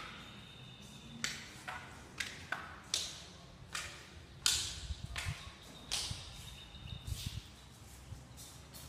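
Footsteps coming down stairs and walking across a bare tiled floor in an empty room: sharp, irregular slaps about every half second to second, each with a short echo.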